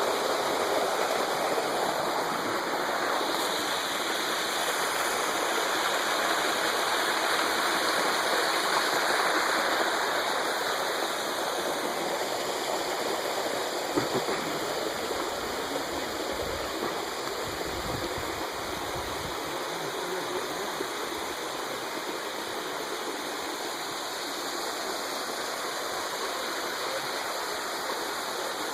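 A stream rushing steadily, an even wash of running water. There is a single knock about halfway through, then a few seconds of low rumble soon after.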